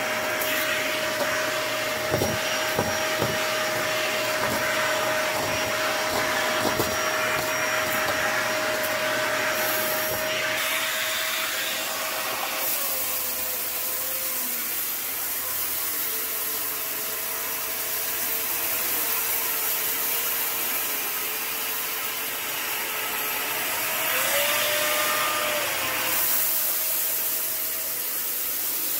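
Dyson cordless stick vacuum running steadily. For the first several seconds the bare wand sucks up clumps of lint and grit with a few sharp crackling clicks. About twelve seconds in the sound changes as a small brush tool runs over the dust-covered rug, adding a faintly wavering tone over the motor.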